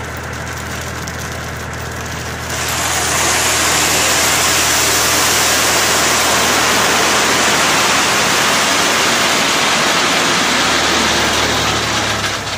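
Tractor engine running steadily while its tipping trolley unloads crushed stone; about two and a half seconds in, the gravel starts sliding out of the raised trolley with a loud, steady rushing hiss that lasts almost to the end, easing off just before it.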